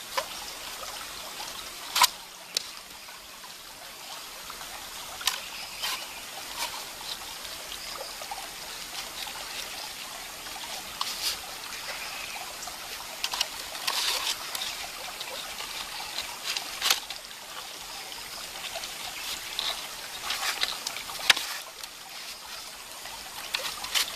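A shallow creek trickling steadily over stones. Sharp clicks and snaps come at irregular moments from split bamboo and a vine binding being handled close by.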